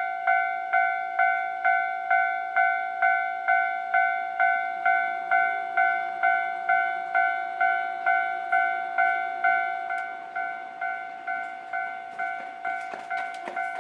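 Japanese railway level-crossing warning alarm, an electronic bell striking steadily at a little over two strikes a second, which steps down in volume a little after ten seconds in. Near the end, clicks of an approaching train's wheels over the rail joints join it.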